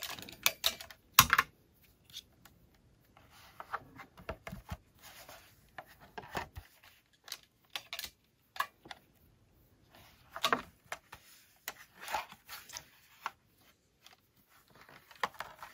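Ring light being screwed onto its tripod stand's threaded mount: scattered clicks, taps and short scrapes of plastic and metal parts as the threads keep failing to catch, the loudest click about a second in.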